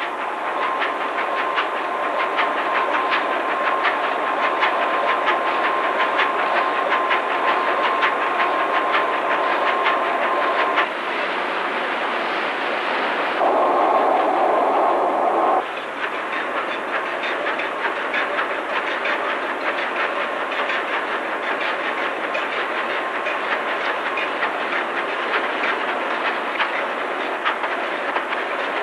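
Large two-stroke diesel engine running on a test bed as its speed rises toward full revolutions: a steady, rapid mechanical clatter. The sound changes abruptly a few times, about eleven and fourteen to sixteen seconds in.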